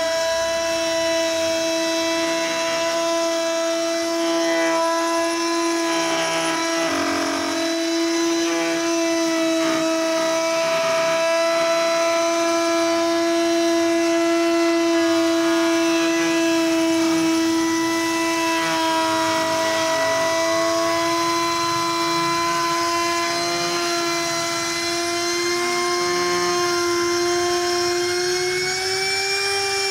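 Handheld electric trim router running steadily while cutting a groove along a mica-laminated board: a steady high whine, its pitch rising slightly near the end.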